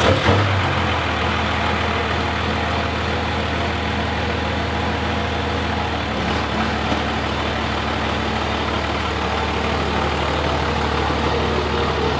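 Second-gen Dodge Ram's 24-valve 5.9 L Cummins diesel firing up right at the start after cranking, then idling steadily. It is the first start after the fuel system was primed through a newly installed AirDog lift pump.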